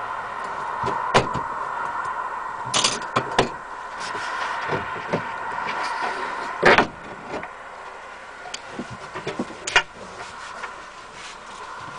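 A Westfalia camper's folding table being taken down from its overhead storage spot: a series of knocks, clicks and clatters, the loudest knock about seven seconds in. A steady hiss underneath drops away at about the same point.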